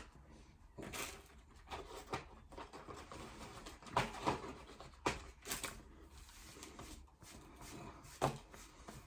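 A man chewing and eating: irregular soft mouth and handling noises, scattered unevenly, with a few louder bursts.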